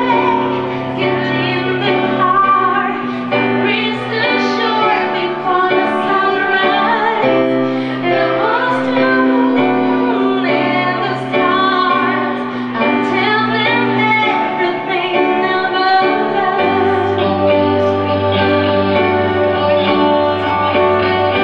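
Live rock band playing a slow song: a woman singing over electric guitars, electric bass and keyboard, with the bass holding long low notes that change every few seconds.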